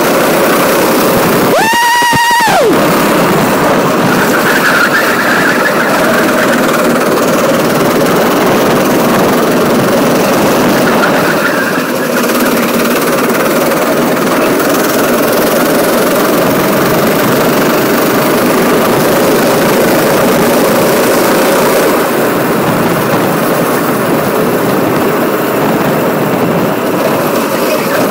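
Go-kart engine running at speed, heard from on board as a loud, steady rush of noise. About two seconds in, a brief high tone with overtones sounds for about a second.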